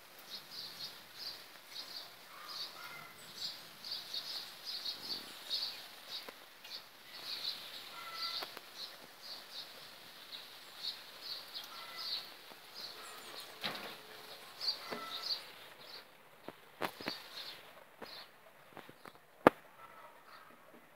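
Birds chirping quickly and repeatedly, with a few lower whistled notes, over a faint steady hiss of rain falling on wet asphalt. A few sharp clicks come near the end, one of them loud.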